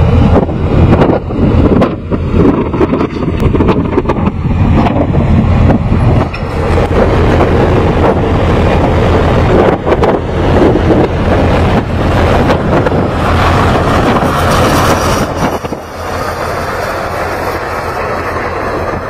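Container crane machinery running: a loud low rumble with rapid clanking and knocking as the spreader lifts a shipping container. The sound thins and drops a little about three-quarters of the way through.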